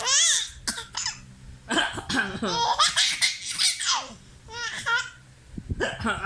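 A baby about 11 months old laughing in several high-pitched bursts of quick repeated 'ha' sounds, with short pauses between them.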